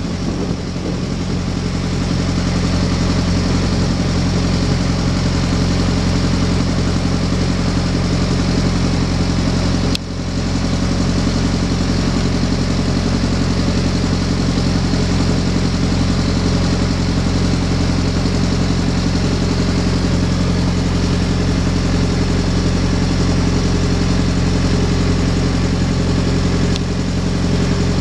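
A river slow boat's engine running steadily: a loud, even low drone with a constant hiss over it.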